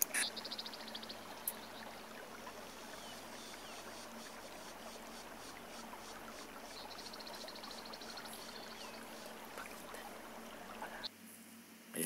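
A video outro playing back through laptop speakers: a faint steady hiss like running water, with a low hum and a few faint high chirps, that the uploader calls weird and not the sound he put in. The hiss cuts off about a second before the end.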